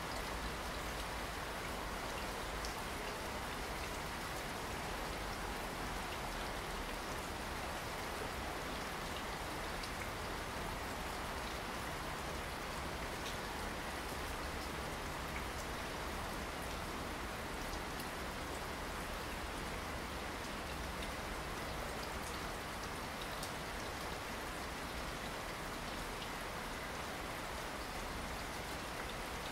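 Rain falling steadily, an even hiss with scattered single drops ticking through it.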